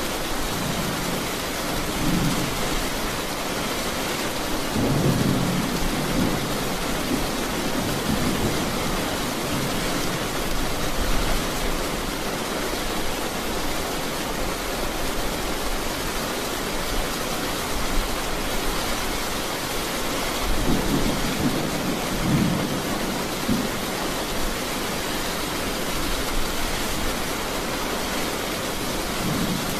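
Heavy rain falling in a steady hiss, with low rumbles of thunder swelling several times, a few seconds in and again about two-thirds through.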